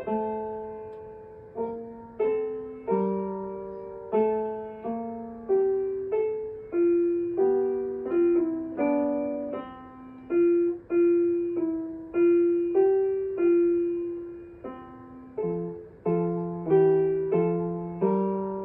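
Piano played at an unhurried pace: single notes and chords struck about once or twice a second, each ringing and fading before the next. Deeper bass notes join near the end.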